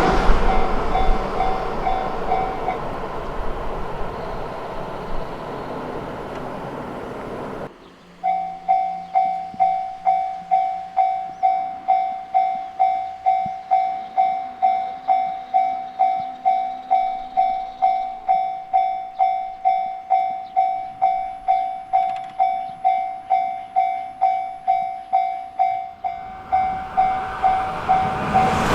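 Japanese level-crossing warning bell dinging at about two strikes a second. At the start it sounds under the fading rush of a Yamagata Shinkansen train that has just gone over the crossing. After a sudden cut the bell rings clear on its own, and near the end a train's rush of noise rises again as it approaches.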